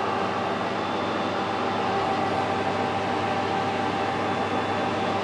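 Metal lathe running steadily just after start-up, a steady hum with several held tones. A bar turns against the brass pads of a travelling steady rest, with no cut yet being taken.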